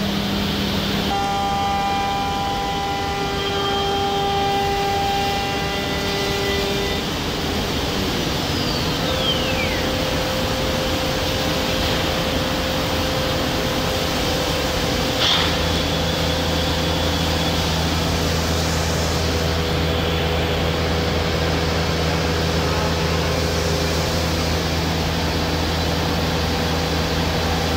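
Automatic tool-change CNC wood router running: steady machine noise with several held tones. A whine falls in pitch about eight seconds in, there is a single click about fifteen seconds in, and a steady low hum follows.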